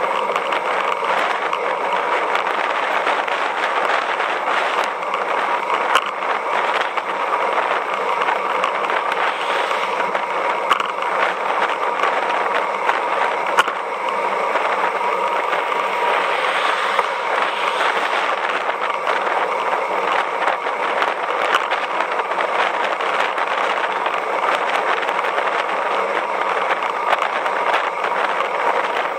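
Steady rush of wind and road noise on the microphone of a camera riding along on a moving road bike, with a few brief clicks or rattles.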